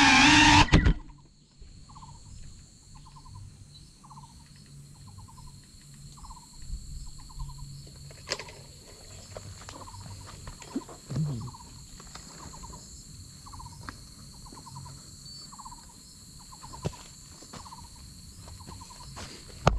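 The motors of a GEPRC Cinelog 35 FPV drone whirring, then cutting off abruptly under a second in as the drone sits landed. A short pulsed chirp, typical of an insect, then repeats about once a second, over a faint steady high whine and a few light clicks.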